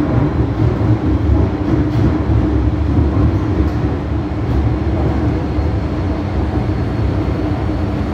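MTR M-Train electric multiple unit running, heard from inside the passenger car: a steady, dense rumble of wheels and running gear with a constant low hum.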